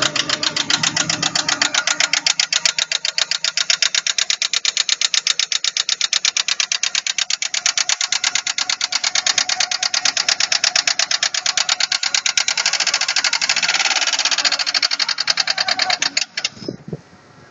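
Alfa Romeo 33's flat-four boxer engine idling with a fast, even, rhythmic knock, several beats a second, that stops about a second before the end as the engine is switched off.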